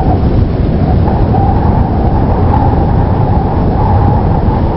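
Loud, steady vehicle rumble, heaviest in the low end, that cuts in and out abruptly as an inserted road-noise effect.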